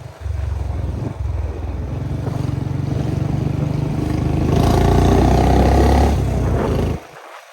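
Royal Enfield Classic 350's single-cylinder engine running with an even low beat. It is revved up for about a second and a half past the middle, then falls away near the end.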